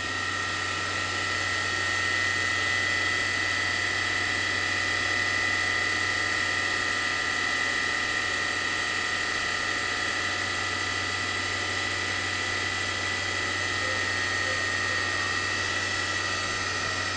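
Spindle of a Fadal 6030 HT CNC vertical machining center running at about 10,000 RPM, giving a steady high-pitched whine over a low machine hum.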